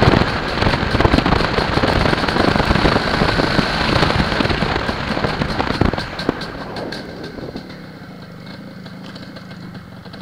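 Loud wind buffeting and road noise on the microphone of a moving MZ ETZ 301 motorcycle, a single-cylinder two-stroke. About six seconds in the bike slows, the wind noise falls away and the engine is left running quietly at low revs.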